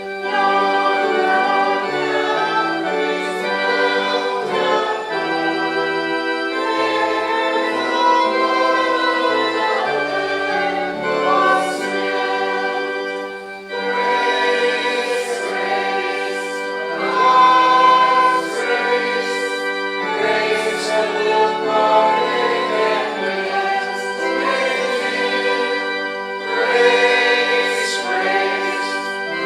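Congregation singing a hymn in unison and parts, over sustained organ chords with held bass notes.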